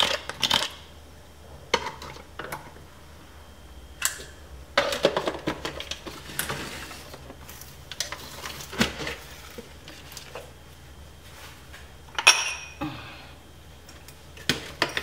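Scattered clinks and knocks of kitchen handling against a stainless steel mixing bowl and the countertop, a dozen or so sharp hits spread out, the loudest about twelve seconds in, over a faint steady hum.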